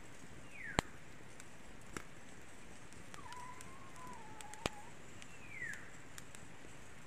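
Wood fire under grilling meat, giving a few sharp pops, the loudest about a second in and near the middle. Between them come a faint wavering whistle and two short falling chirps.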